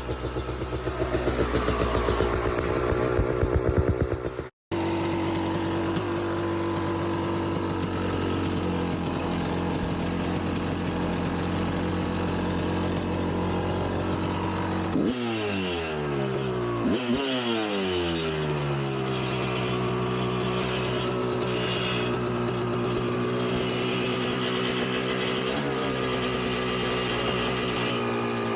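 1999 Kawasaki KX250 two-stroke dirt bike engine running. It mostly holds a steady idle, revs up sharply about fifteen seconds in and again a moment later, then its pitch slowly falls back.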